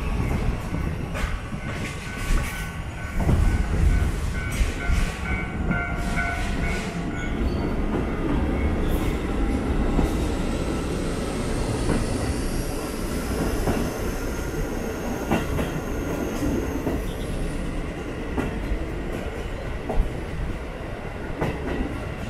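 Furano-Biei Norokko train heard from its open-window car as it runs along the line: wheels rumbling and clattering on the rails. A long, high wheel squeal rises and fades from about halfway through.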